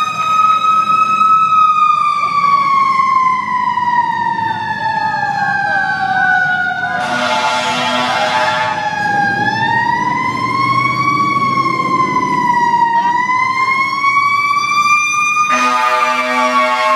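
Fire truck siren wailing in slow falling and rising sweeps, with two air-horn blasts over it: a short one about seven seconds in and a longer one starting near the end.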